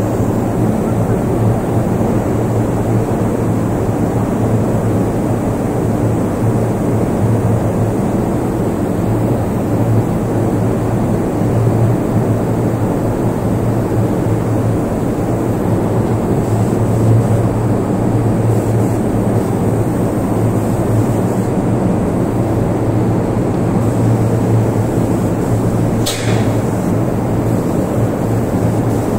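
Paint spraying equipment running steadily while the final coat is sprayed onto a steel pipe: a constant low hum with a dense rush of noise and no breaks. A single sharp click comes near the end.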